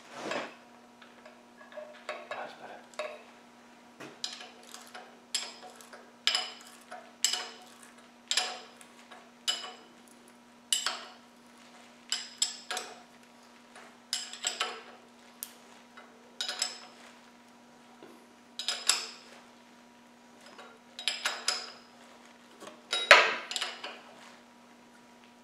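Steel spanner clinking on a camshaft plug in an engine block as it is tightened by hand: short metallic clinks about once a second as the spanner is swung and refitted, the loudest near the end. A steady low hum runs underneath.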